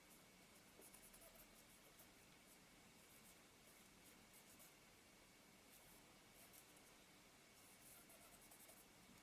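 Near silence with faint, scattered scratchy rubbing: small hand-tool work on a Synchro Compur camera shutter.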